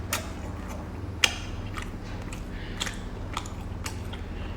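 Close chewing and biting of seafood, with scattered short sharp clicks and cracks, the loudest about a second in, over a steady low hum.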